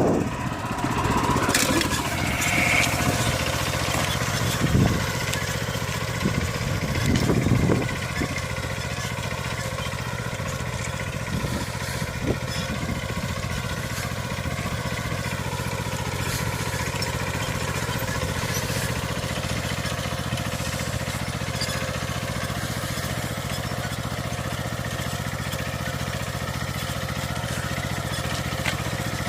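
Small engine of a walk-behind cultivator fitted for plastic mulch laying, running steadily. There are a few louder swells and thumps in the first eight seconds, then an even, unchanging sound.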